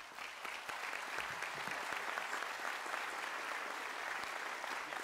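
Large audience applauding: many hands clapping in a dense, steady patter.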